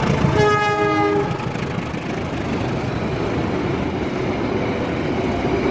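Diesel freight train passing close: the locomotive's horn sounds once for about a second near the start. Then comes the steady noise of the loaded container flatcars rolling by on the rails.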